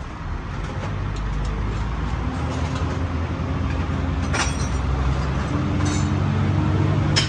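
A motor vehicle engine running, its hum slowly growing louder and creeping up in pitch. Two sharp metal clinks from hand tools on the truck's steel, one a little past halfway and one near the end.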